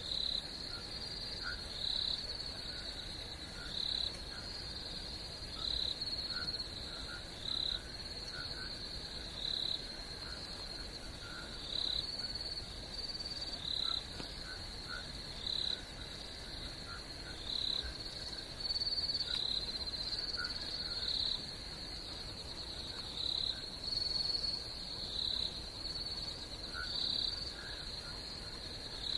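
Crickets trilling steadily at a high pitch, with a louder chirp repeating about every two seconds and faint lower calls scattered in between.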